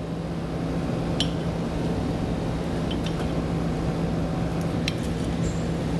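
Steady low hum of background machinery, with a few faint metal clinks as a half-inch wrench turns a brass air fitting tight on an air spring's steel top plate.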